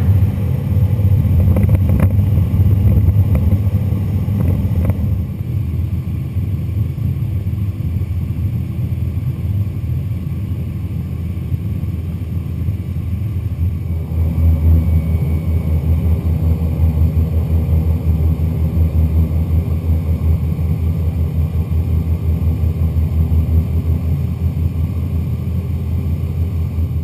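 The T-27 Tucano's PT6A turboprop engine and propeller run as a steady low drone with a rapid flutter during the ground roll and taxi. It gets louder at a cut about 14 seconds in.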